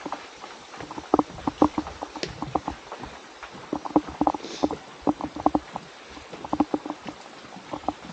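Rapid, irregular hollow wooden knocks and clacks, coming in clusters over a faint steady hiss.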